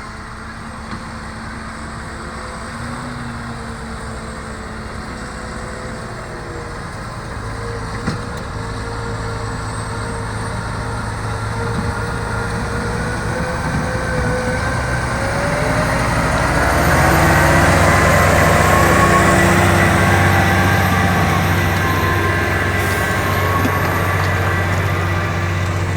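Case IH Optum 300 tractor's six-cylinder diesel engine running under ploughing load. It grows louder and its pitch rises about two-thirds of the way through, then it holds steady.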